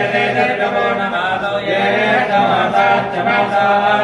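Several men chanting Vedic Sanskrit verses together in a continuous recitation on a low, steady pitch.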